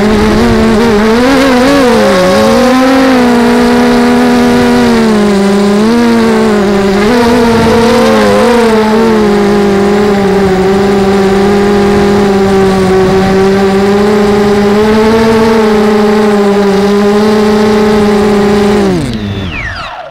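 RC quadcopter's electric motors and propellers whining, recorded close up by the onboard camera. The pitch wavers up and down with the throttle, then holds steady, and near the end it falls as the motors spin down and stop.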